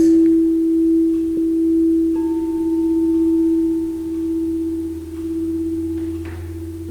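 Meditation background music: a long-held pure tone over a low drone, with a second, higher tone joining about two seconds in, the whole slowly fading.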